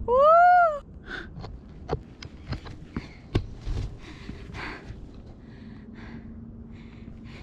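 A woman's loud, high nervous cry that rises and then falls, half whimper and half laugh, right at the start. Her hard breathing follows, with scattered scuffs and sharp clicks from climbing.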